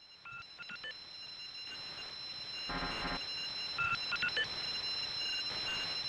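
Steady high electronic tones over a slowly rising hiss, with two short flurries of beeps, one near the start and one about four seconds in, and a brief buzzy burst about three seconds in.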